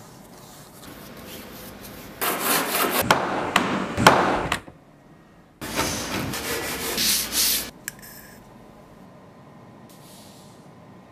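A sanding block is rubbed hard across a rigid shell surface in two scraping passes of about two seconds each. The first pass has a few sharp clicks.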